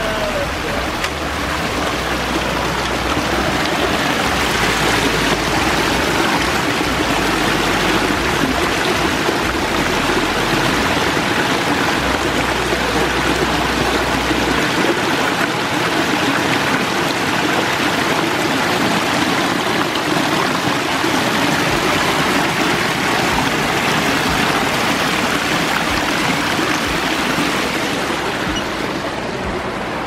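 Water from a backyard pond waterfall spilling over several stone ledges into a rock-lined stream and pool: a steady rushing and splashing.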